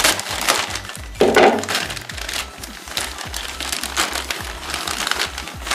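Plastic courier mailer bag crinkling and rustling as it is cut with a knife and torn open by hand, over background music.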